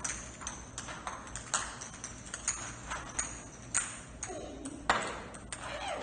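Hollow plastic practice golf balls striking and bouncing on a hard tiled floor: a scatter of sharp clicks with a short ring, about two a second.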